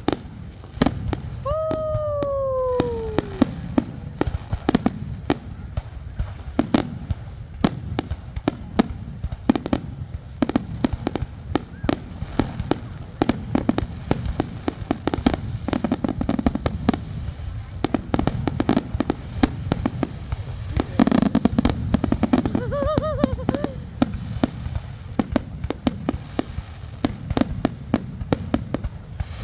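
Fireworks display: a steady run of booming bursts and sharp cracks, with a falling whistle about two seconds in.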